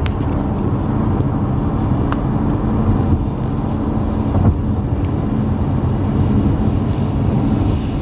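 Steady road noise inside a moving car's cabin: tyres running on a wet, slushy highway under a constant engine hum, with a few light clicks.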